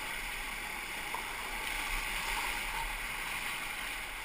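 Whitewater rapids rushing and churning around a kayak: a steady hiss of fast, broken water.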